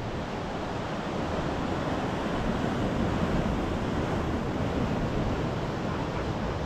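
Ocean swell washing and breaking against a coastal sandstone rock shelf, a steady surf wash, with wind gusting across the microphone.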